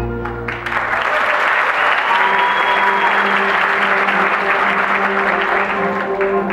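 Audience applauding, starting about half a second in and fading near the end, over a held note of the accompanying music.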